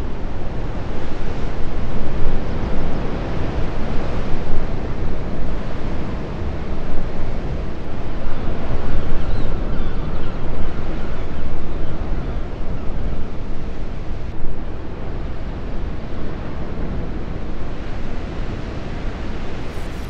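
A rushing wind-and-water ambience: a loud, even rush of noise, heaviest in the low end, that swells and eases, somewhat quieter in the last third.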